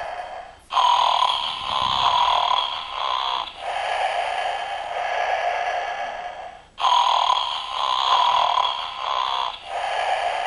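Snoring plush toys, a moose and a bear, playing a recorded snore through a small toy speaker. The snore is thin, with no deep rumble, and repeats in a loop of long breaths about three seconds each, broken by short gaps.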